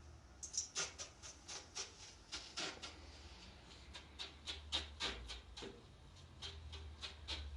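A quick, uneven series of light clicks or taps, about three or four a second, starting about half a second in.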